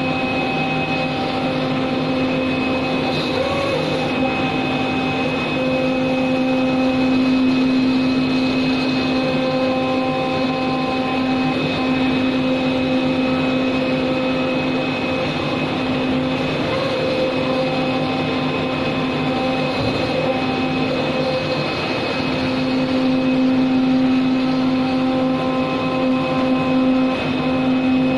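CNC knife-cutting machine running while it cuts fibre cloth: a steady mechanical hum with a pitched drone that thins out briefly a few times.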